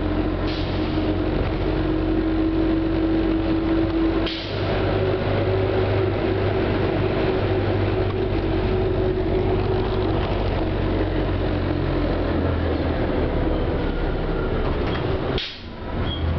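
Inside a 1996 New Flyer C40LF city bus under way: its Detroit Diesel Series 50G natural-gas engine drones steadily with road noise, its pitch drifting slowly. A short hiss and a brief drop in the sound come about four seconds in and again near the end.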